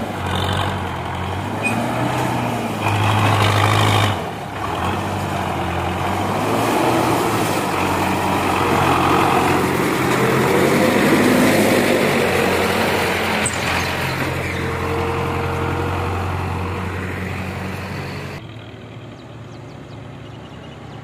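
Belarus 510 tractor's diesel engine running as it pulls a heavily loaded sugarcane trailer past, growing loudest around the middle, then dropping away sharply near the end.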